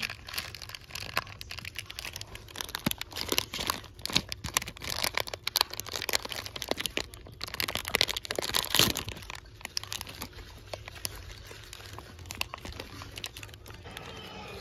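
Foil blind-bag packet crinkling and crackling in the hands as it is handled and opened. It is loudest in the middle and settles to lighter rustling over the last few seconds.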